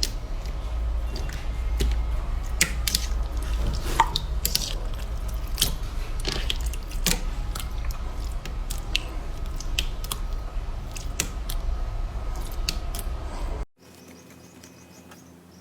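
Slime being pressed and kneaded by hand, giving many small sticky pops and clicks over a low hum. A little before the end it cuts off suddenly to a much quieter passage.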